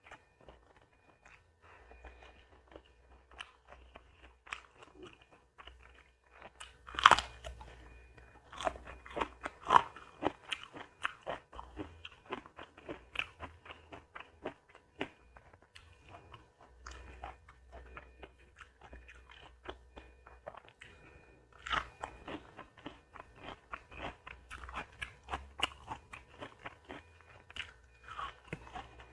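A person eating close to the microphone: crunchy bites and steady chewing, the sharpest crunch about seven seconds in and another around twenty-two seconds.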